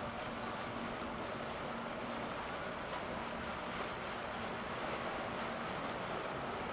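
Boat engine running with a steady low drone, mixed with water wash and wind noise.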